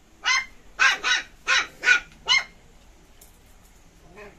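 Dog barking: six sharp barks in quick succession over about two seconds.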